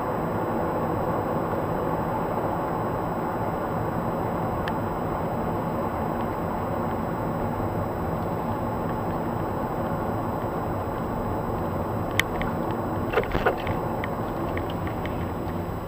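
Steady engine and tyre noise heard inside the cabin of a moving car. A few sharp knocks come about twelve to thirteen and a half seconds in, followed by faint ticks.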